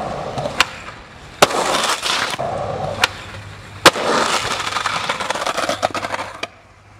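Skateboard wheels rolling on asphalt, broken by four sharp clacks of the board popping and landing, the loudest about a second and a half in and about four seconds in. The rolling cuts off suddenly near the end.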